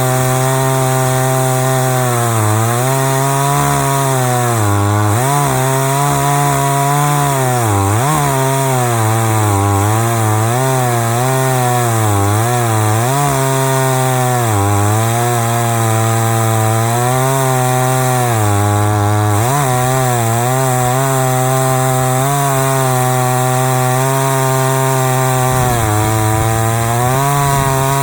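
Chainsaw in an Alaskan mill, running at full throttle as it rips along a log, its pitch sagging and recovering again and again as the engine bogs under the load of the cut.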